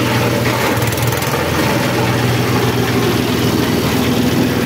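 Single-cylinder horizontal diesel engine running steadily under load, driving a chaff cutter that is shredding corn stalks, its hum mixed with the hiss and rattle of chopped stalks being thrown out.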